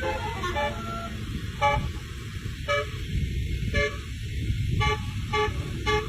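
Bus's 'basuri' telolet musical air horn playing a tune in short separate toots, a few quick notes at first and then about one note a second, over a steady low rumble.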